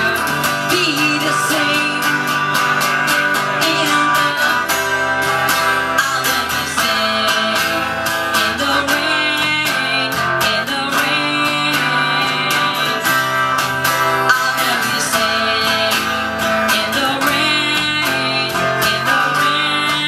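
Two acoustic guitars playing live in an instrumental passage, strummed chords under picked melody notes.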